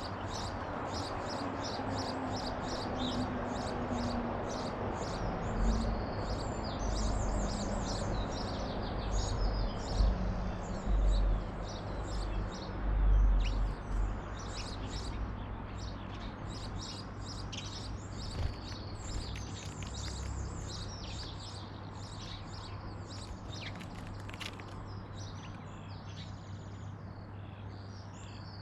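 Small garden birds chirping and twittering, many short, high calls overlapping, over a steady background hiss. A few low rumbles come in the first half.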